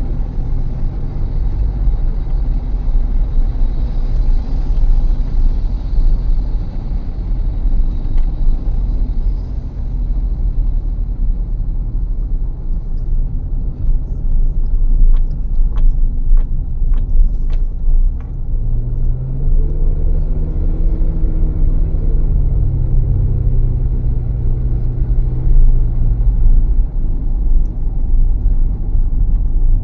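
Car driving along: a steady, loud low rumble of road and engine noise. A few light clicks come about halfway through. Later a pitched engine note rises and then falls away.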